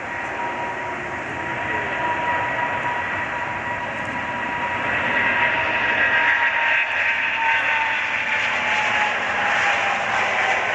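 Boeing 777-300ER's GE90 jet engines at high thrust as the airliner takes off, the rumble growing louder over the first few seconds, with a whine that slowly falls in pitch as it goes past.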